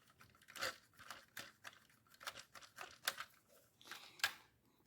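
Faint, irregular clicks and rustles of small things being handled.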